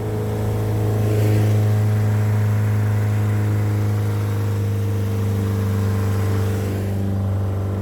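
Ford 2.3 L four-cylinder MerCruiser sterndrive engine running steadily with an even low drone, picking up slightly about a second in and then holding.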